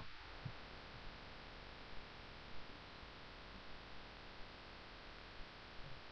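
Near silence: a faint steady hiss with a low hum, broken by a few soft ticks.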